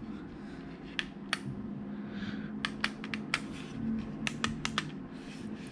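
Individual port on/off push-button switches of a 10-port powered USB hub being pressed, giving about ten sharp clicks at irregular intervals, several in quick runs. The firm clicking shows solid, sturdy buttons.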